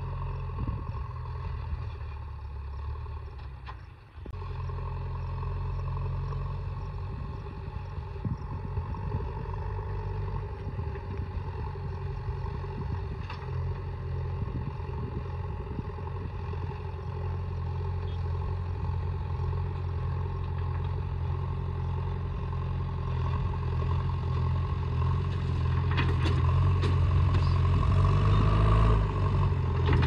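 JCB 3DX backhoe loader's diesel engine running steadily as the machine drives closer, getting louder toward the end, with a few rattles near the end.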